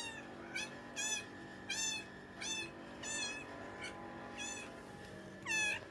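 Long-haired orange cat meowing over and over: about ten short, high-pitched, chirping meows, a little more than one a second, the last one near the end the loudest.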